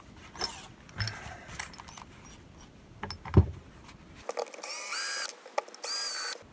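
Cordless drill-driver run in two short bursts, about a second and then about half a second, its motor whine rising at the start of each and then holding steady, backing out the screws that hold the vise's steel jaw plates. A few light metal knocks and clicks come before it.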